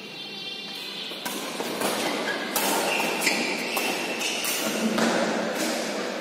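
Badminton rally: rackets striking the shuttlecock several times in quick succession, with players' feet thudding on the court floor.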